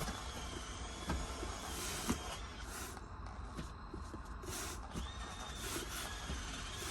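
Short-throw shifter on a TR6060 six-speed manual being worked through the gate: scattered clicks and knocks of the lever and linkage over a low hum. The lever will not go into 5th gear, which the owner puts down to a faulty 5th/6th/reverse synchro.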